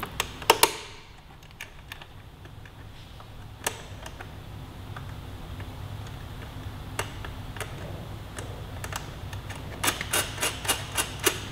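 Light clicks and taps of small metal parts being handled: a bolt and nut being fitted to an aluminum fender eliminator bracket. They come singly at first, then as a quick run of clicks near the end.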